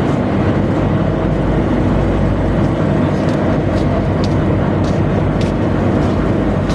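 Tugboat machinery running steadily with a loud, even, low drone, with a few faint clicks about halfway through.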